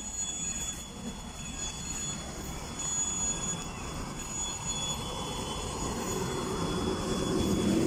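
Electric commuter train pulling away from the platform, its rumble growing steadily louder as the carriages pass and pick up speed. A faint high squeal comes and goes over it.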